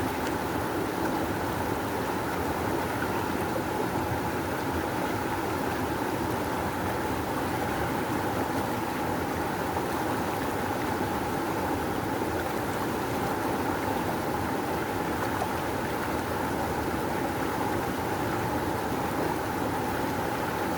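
Rushing river water, a steady unbroken rush of flowing current.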